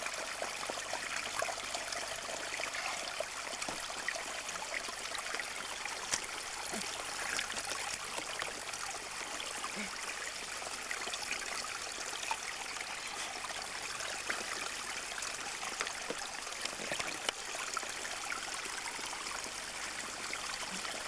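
A small stream trickling over stones, a steady rush of flowing water close by.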